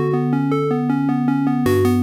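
Synthesized demo tune from a Yamaha MA-series mobile-phone sound chip: a quick run of notes, about eight a second, over a held bass note. Near the end, the bass drops lower and the sound turns brighter.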